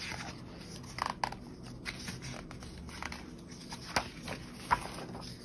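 Paper pages of a spiral-bound planner being turned by hand: a soft rustle broken by a few sharp paper crackles, a cluster about a second in and the loudest near the end.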